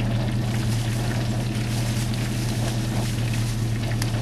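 Propane turkey-fryer burner running steadily under a pot of oil as it heats, a constant low drone with a hiss over it.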